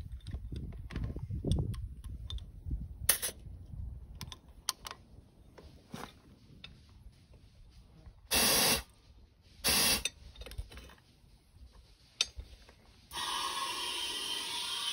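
Rubber tire and inner tube being worked onto a riding mower's wheel rim by hand: rubbing, shuffling and scattered clicks and knocks. Two short loud bursts of rushing noise come about eight and ten seconds in, and a steady rushing noise starts about two seconds before the end.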